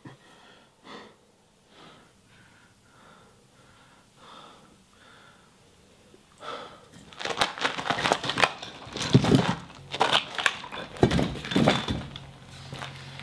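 A man's ragged breathing in distress: faint, spaced breaths at first, then from about halfway loud, fast, rasping gasps and heaving. A low steady hum comes in near the end.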